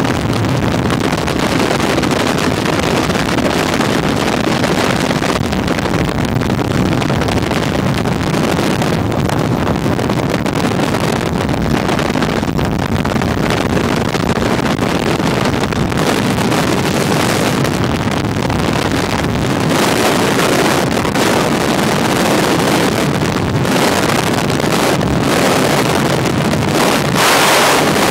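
Sport motorcycle riding at speed: heavy wind rush buffeting a handheld phone's microphone over the engine's running noise, with a louder, brighter gust about a second long near the end.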